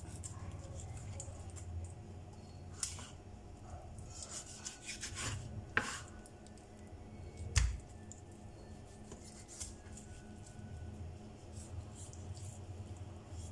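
A kitchen knife slicing raw chicken breast off the bone on a wooden cutting board: soft cutting and scraping with scattered knocks of the blade on the board, the loudest a thud about seven and a half seconds in, over a low steady hum.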